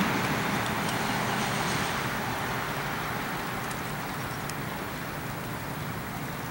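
EMD diesel locomotive running at low throttle as it creeps slowly along rough track, a steady rumble that eases slightly quieter, with a few faint clicks.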